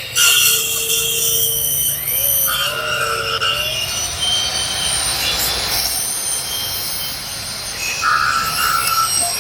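Table-mounted cut-off saw with a carbide-tipped alloy blade (DKCN 210) cutting through steel, a steady metal-cutting screech with high whining tones that shift in pitch as the blade bites.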